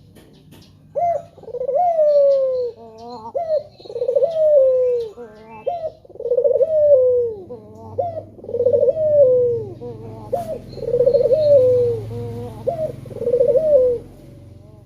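Male Barbary dove (puter) cooing: six rolling coos in a row, roughly two seconds apart, each opening with a quick upward sweep and falling away.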